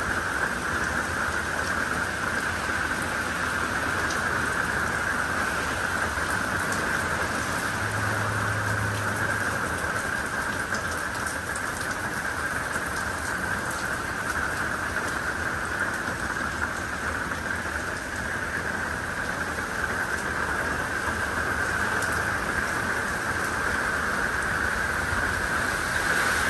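Steady, even rain falling on a screened pool enclosure, its wet tiled deck and the pool water.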